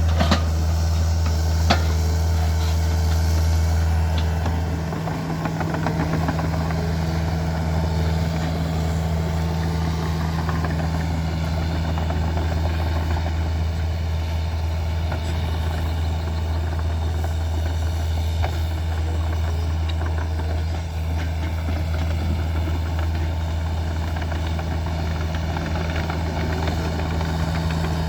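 Hitachi mini excavator's diesel engine running steadily with a low hum, dropping slightly in level about five seconds in.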